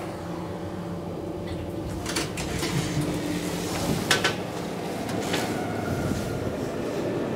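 1998 KONE M traction elevator's sliding car doors opening at the landing, with a few sharp clicks and clunks over a steady low hum; the background grows a little louder near the end.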